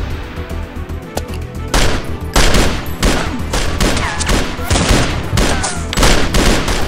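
A burst of handgun gunfire: many shots in quick succession, few at first, then dense and loud from about two seconds in.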